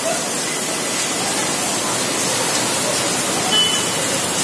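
Heavy rain mixed with hail pouring onto a wet road and parked vehicles: a steady, dense hiss.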